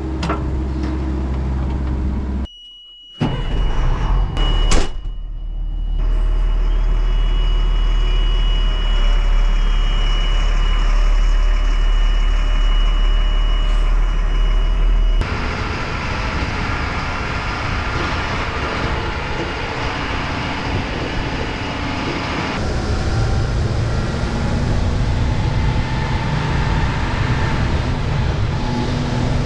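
Military cargo truck's diesel engine running while driving. Inside the cab it is a heavy low drone with a steady high whine; after an abrupt change it is heard from outside the truck as it travels along the road. There is a short dropout near the start and a single knock at about five seconds.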